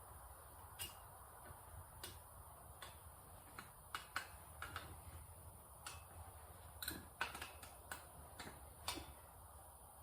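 Faint, irregular light clicks and taps of brake parts and hand tools being handled, a quick cluster of them a little after the middle.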